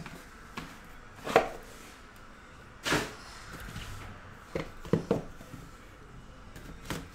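A handful of light, sharp knocks and taps, about seven spread unevenly with a quick cluster of three just past the middle, as a shrink-wrapped cardboard trading-card box is handled and set down on the table mat.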